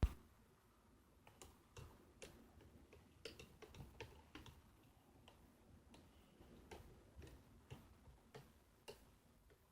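Faint, irregular light clicks of a spoon knocking against a container while stirring borax into water to dissolve it, with one sharper click at the very start.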